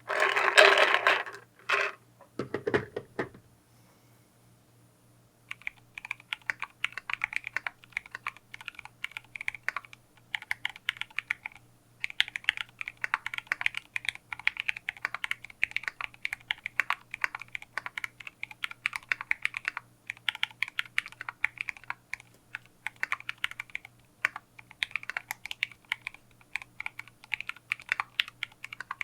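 Typing on a KBDfans D60 aluminium 60% HHKB-layout keyboard fitted with lubed Zealios 65 g tactile switches and PBT Cherry-profile keycaps. Fast, continuous keystroke clicks begin about five seconds in and come in runs with brief pauses. Before them there is a short loud sound in the first two seconds.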